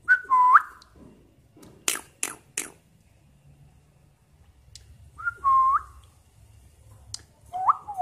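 Cockatiel whistling: three short phrases, each a clear note that dips and then swoops upward, near the start, about five seconds in, and at the end. About two seconds in come three sharp clicks in quick succession.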